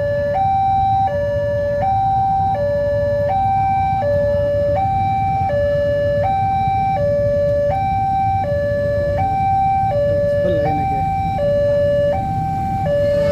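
Railway level-crossing warning alarm sounding its electronic two-tone signal, high and low notes alternating about once a second, with a low rumble underneath. It is the warning that a train is approaching and the crossing barrier is down or closing.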